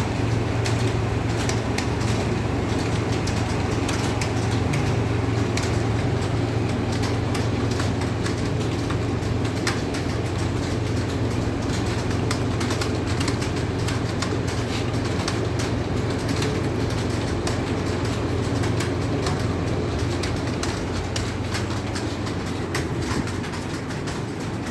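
Many computer keyboards clattering at once during a typing test: dense, irregular key clicks over a steady low hum.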